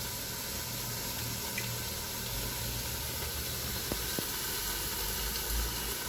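Chicken sizzling on a Kenwood electric health grill, a steady hiss, with two faint ticks about four seconds in.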